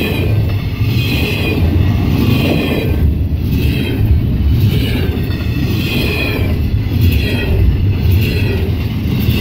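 Double-stack container cars of a Canadian Pacific freight train passing at speed: a loud, steady rumble of wheels on rail, with higher ringing tones coming and going about once a second.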